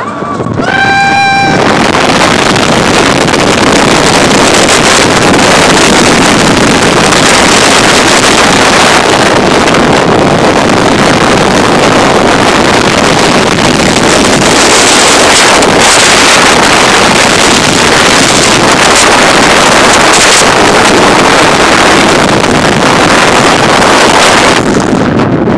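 Loud, steady rush of wind over the microphone on a roller coaster train speeding down the first drop of the Titan hypercoaster and through its course. A brief high-pitched cry sounds just as the drop begins.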